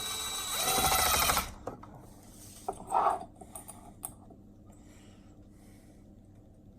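Small cordless power screwdriver with a ball-tipped bit running briefly as it drives a screw, about a second and a half, then a shorter burst about three seconds in.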